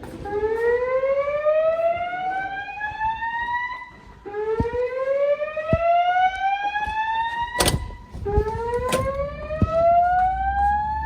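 Notifier fire alarm sounding the slow whoop evacuation tone through System Sensor L-Series speaker/strobes: three rising whoops, each sweeping upward for about four seconds. Two sharp clicks come partway through.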